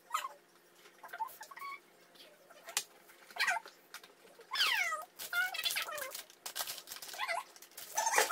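A little girl's high-pitched squeals and whiny cries without words, several sliding down in pitch, the loudest about halfway through. Between them, the plastic wrapping of a cookie box crinkles and clicks as it is pulled open.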